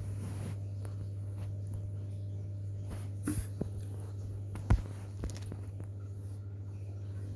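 A few clicks and knocks of a mini sewing machine's plastic parts being handled, the loudest about two-thirds of the way through, over a steady low hum.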